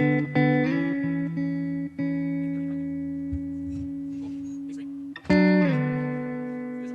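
Background music on guitar: chords struck and left to ring and fade, with a fresh, louder chord about five seconds in.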